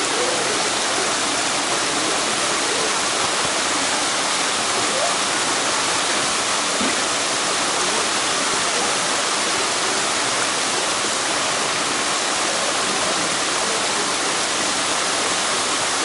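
A waterfall and a shallow stream running over rocks: a steady, even rush of water.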